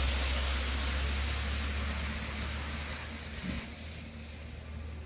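Steady hiss of heavy rain over a low rumble, the whole noise slowly fading, with a faint knock about three and a half seconds in.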